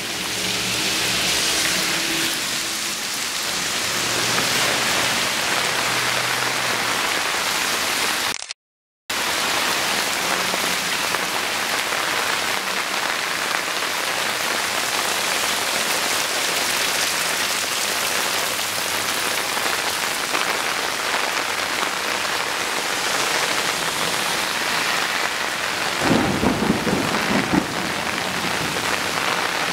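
Heavy rain pouring steadily onto grass and pavement, heard as a dense, constant hiss. The sound cuts out briefly about eight seconds in, and a louder, lower burst comes near the end.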